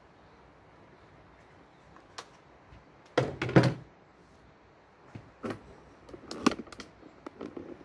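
Einhell cordless hedge trimmer being set down on a stone tabletop: a few hard knocks a little after three seconds in, then lighter scattered knocks and clicks of the tool being handled.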